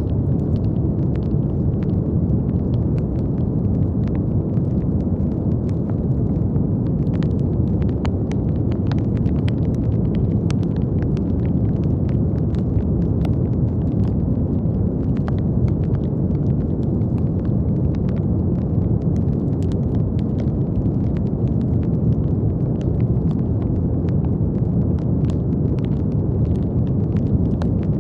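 Steady brown noise, a deep, even hiss weighted toward the low end, with many faint small clicks scattered through it.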